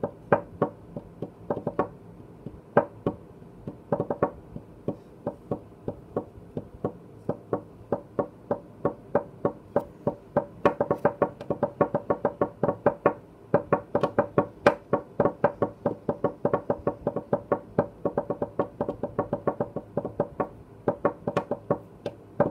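Fingertips drumming on a desk, tapping out a lion dance drum rhythm: sharp knocks, spaced out at first, then fast runs of quick taps from about halfway.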